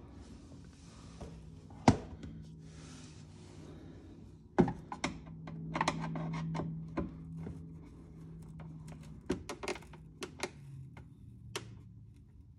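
Scattered clicks and knocks of a hand screwdriver and plastic bumper trim being worked while self-tapping screws are driven in to fit a car's rear diffuser. The sharpest taps come about two seconds in and again just before five seconds, followed by a busier run of clicks.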